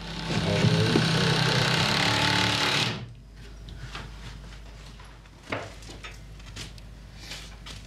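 A power tool runs in one continuous burst of about three seconds with a buzzing hammering note, then stops suddenly; a soft knock follows a few seconds later.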